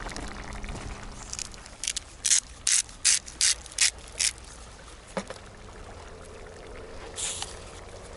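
Hand spice grinder being twisted over a plate: about eight short grinding strokes in quick succession, roughly two a second, followed by a single knock.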